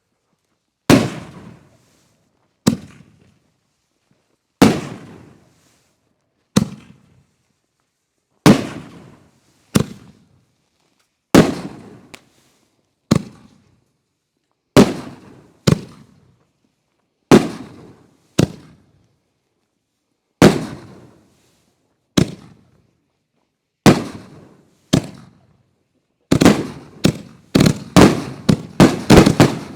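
A homemade cake of linked canister-shell fireworks firing: single sharp booms every one to two seconds, each trailing off in an echo. About four seconds from the end the booms come in a rapid, overlapping string.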